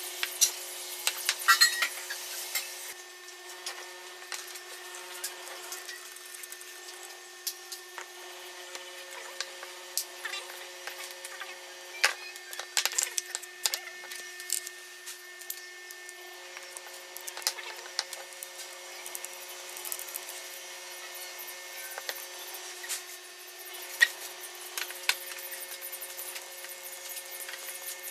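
Hand sanding with folded sandpaper for the first few seconds, a dense scratchy rubbing. Then comes a run of scattered small clicks and knocks as a metal ruler, screws and hardwood parts are handled and fitted on a wooden workbench, with a screwdriver at work near the end. A faint steady hum lies underneath.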